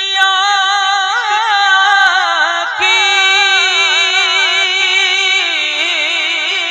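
Male naat reciter singing a long, wavering melismatic line on held vowels into a microphone. There is a short break just before the middle, and then the line comes back louder on a held note.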